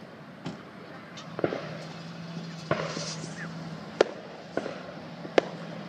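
Aerial firework shells bursting overhead: about six sharp bangs at uneven intervals, the loudest about four seconds in.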